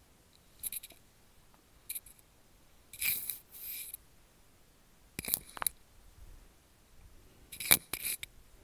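Paper handling: about five short scratchy rustles with sharp clicks, a hand moving on the pages of an open book.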